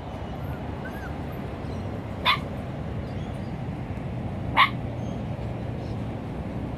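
Cavoodle puppies yipping: two short, sharp yips about two seconds apart, over a steady low background hum.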